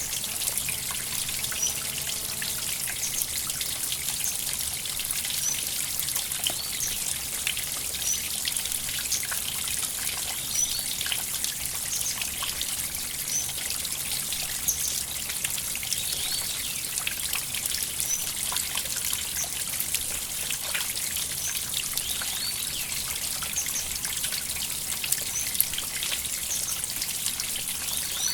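River water trickling and splashing over stones in a steady, constant rush, full of fine drip-like detail. A faint high chirp recurs every couple of seconds.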